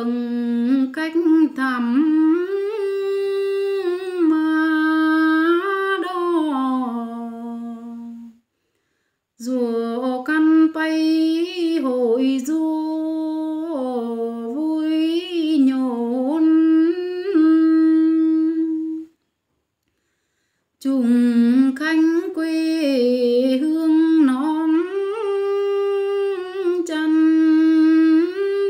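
A woman's unaccompanied voice humming a slow, ornamented song melody without words, in three long phrases with short silences between them.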